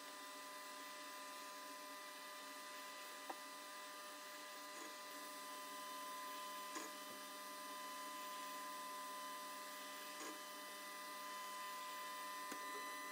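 Faint, steady hum with several high, even whining tones from a DIY laser metal 3D printer running a test print, with about five soft clicks scattered through it.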